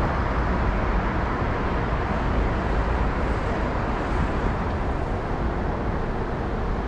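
Steady road traffic noise with a low rumble, with no single event standing out.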